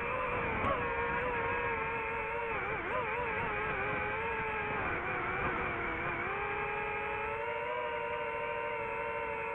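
Quadcopter drone's motors and propellers whining steadily, the pitch wavering as it manoeuvres, then dropping slightly about six seconds in and holding steady.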